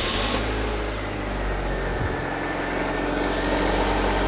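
Car engine just started, settling into a steady idle.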